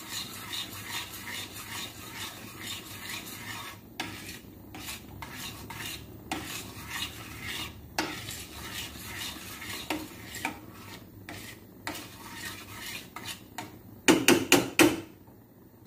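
A metal utensil stirring béchamel sauce in a metal saucepan, scraping and clinking against the pan in quick repeated strokes, with a few louder knocks against the pan near the end. The sauce is stirred slowly so it does not burn.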